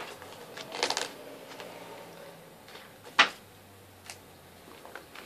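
Handling noise from a DVD booklet and its case: a brief paper rustle about a second in, then a sharp click a little over three seconds in and a lighter click a second after.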